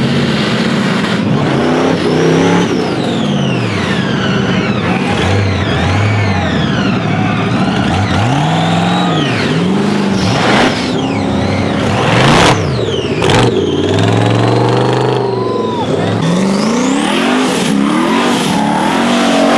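Off-road vehicle engine revving up and down over and over, its pitch rising and falling in repeated swells, with a few short sharp noises about halfway through.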